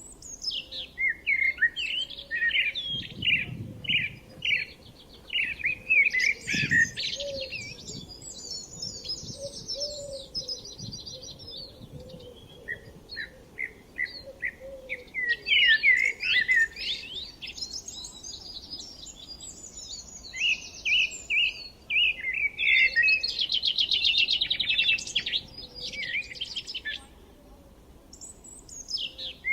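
Several songbirds singing and chirping, with overlapping whistled phrases and quick repeated chirps. Fast trills come around a third of the way in and again in the last third, and the singing drops off briefly just before the end.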